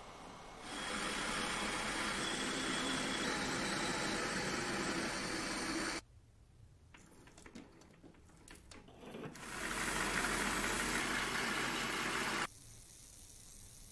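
Two stretches of steady workshop machine noise. First an induction heater runs with a faint high whine while it heats a steel rod red-hot. After about three seconds of quiet small clicks, a lathe spins a steel rod while it is polished with an abrasive pad.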